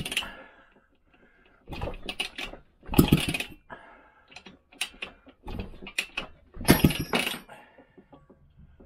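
Vespa PX two-stroke single-cylinder engine being kicked over by hand with its kickstart during a compression test. The kicks come as several short metallic clatters as the engine turns over against its compression, which is good: the gauge climbs towards 100.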